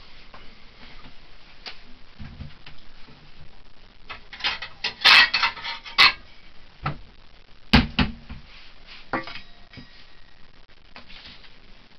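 Dishes and utensils being handled: scattered light clinks, a burst of clattering and rattling near the middle, then a single sharp knock a couple of seconds later.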